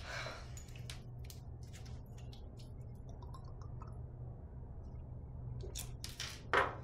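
Quiet handling sounds at a dressing table: a brush-like swish at the start, then scattered light clicks and taps as a small glass bottle and makeup are handled. A short, louder rush of sound comes near the end, all over a steady low hum.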